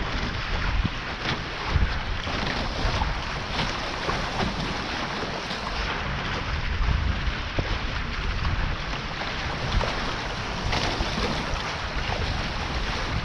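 Water rushing and splashing past the hulls of a Taipan 5.7 catamaran sailing at speed, with steady wind rumble on the GoPro's microphone.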